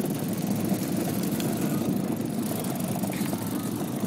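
Hard plastic wagon wheels rolling fast over asphalt behind a towing bicycle: a steady, even rumble.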